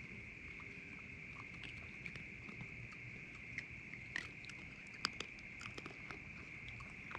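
Raccoons chewing and gnawing on a carved pumpkin, a scatter of small crunches and clicks with rustling in the straw; the sharpest crack comes about five seconds in.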